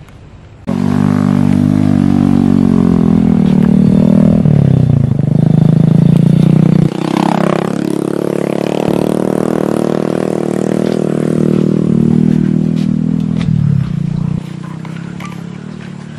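An engine running loud, starting abruptly about a second in, its pitch shifting up and down several times before it drops off near the end.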